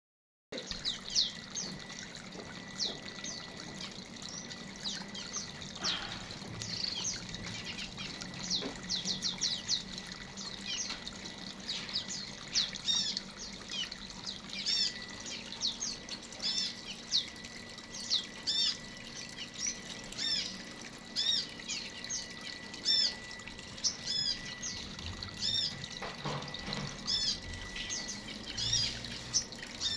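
Aviary birds chirping: a long run of short, high chirps, one after another, over a steady faint background noise.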